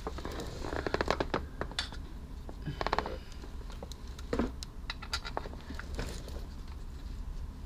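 Hand tools working the oil pan bolts on the underside of a Mercedes S500: two short runs of rapid metallic clicking, about a second in and about three seconds in, with scattered single clicks and knocks between.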